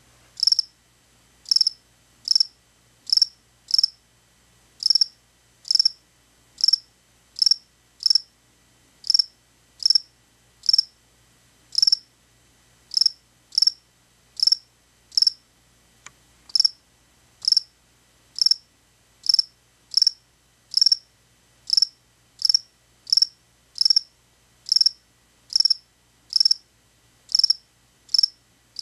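A cricket chirping: short, high chirps repeated at an even pace, about three every two seconds, with an occasional slightly longer gap.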